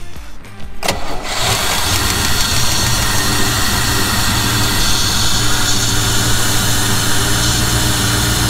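Indmar GM LT1 350 5.7L V8 marine engine, valve cover off with the roller rockers exposed, coming in abruptly about a second in and then running steadily at idle. It is a test run after transmission fluid was poured on the rockers to free them, with oil still not reaching the top of the engine.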